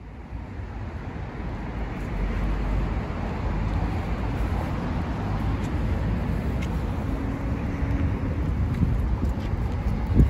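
Steady rumble of road traffic on a city street, fading in over the first couple of seconds, with a brief low thump near the end.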